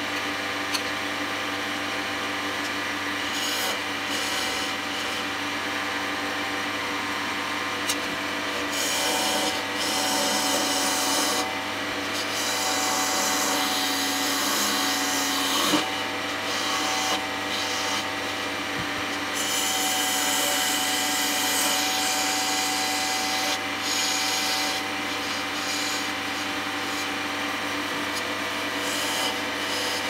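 Wood lathe running with a steady motor hum while a turning tool cuts the spinning wood blank, giving a scraping, hissing cut that swells and eases as the tool takes its passes.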